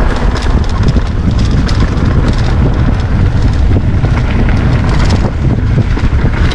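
Wind buffeting the camera microphone over the rumble and rattle of a mountain bike rolling fast down a dirt track, with scattered clicks and knocks from the tyres and frame over bumps.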